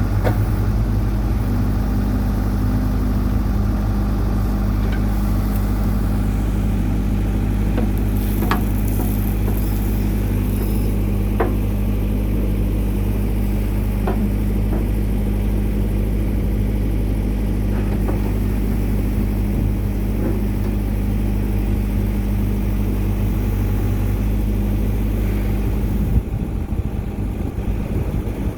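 New Holland LB75 backhoe's diesel engine running steadily, with a few light clicks and knocks scattered through and a sharper thump near the end.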